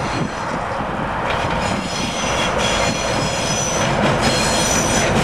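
Two coupled ChME3 diesel shunting locomotives running past, their six-cylinder diesel engines rumbling and getting louder toward the end. From about a second in, a steady high-pitched whine sits over the rumble, with a few clacks of wheels over rail joints.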